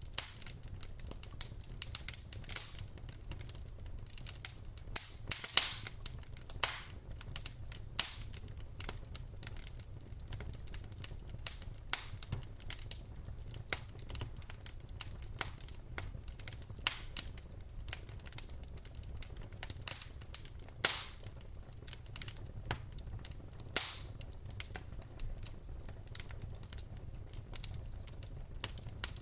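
Wood fire crackling: logs burning in a fireplace with irregular small clicks and pops and a few louder snaps, over a steady low rumble of the flames.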